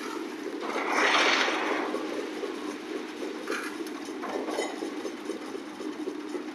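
Concrete mixer running with a steady, rapidly pulsing drone. A louder rushing noise about a second in lasts about a second, and a few shorter ones come near the middle.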